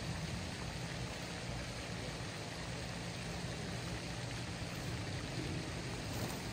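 Steady outdoor background noise: an even hiss with a low hum beneath it, and no distinct events.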